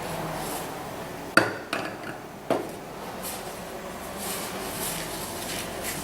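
A few sharp metallic knocks and clinks as a ratchet head and small metal parts are handled and set down on a hard surface. The loudest comes about a second and a half in and another about a second later, with faint scraping between.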